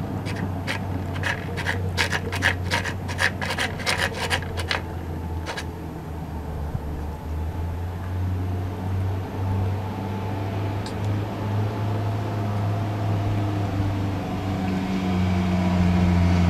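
A cat eating wet food: a quick, irregular run of small wet clicks from chewing and licking in the first five seconds or so, then stopping. Under it is a steady low hum that grows louder near the end.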